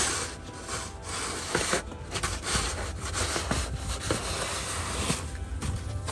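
Repeated scraping strokes of wet, heavy snow being scraped and pushed; the snow has water mixed into it, so each stroke takes force.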